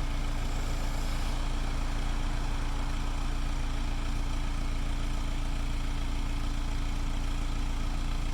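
Case 580E backhoe's diesel engine running steadily at idle, with an even low drone that does not change.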